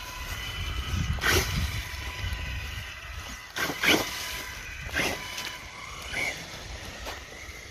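Axial Ryft RC rock bouncer driving over rough ground: a low rumble with a faint thin whine from its electric drivetrain, and sharp knocks as it bangs over obstacles, about one, four and five seconds in.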